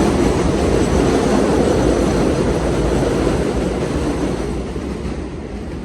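Loud, steady rumble of a passing vehicle, dying away over the last second or so.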